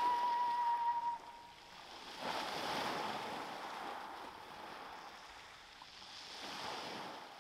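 Waves washing onto a shingle beach, with two surges of surf about four seconds apart. A held flute note ends about a second in.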